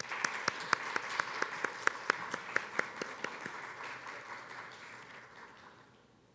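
Audience applauding, with single claps standing out, dying away over the last second or so.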